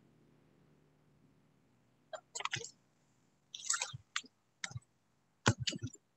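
A faint held low tone fading away, then from about two seconds in a string of short crackling bursts of noise with total dropouts between them: the stream's audio cutting in and out and coming through garbled.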